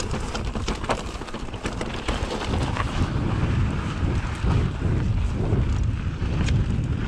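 Mountain bike rolling over a rocky trail: the tyres rumble on rock and grit with scattered rattling clicks from the bike, under wind buffeting the microphone.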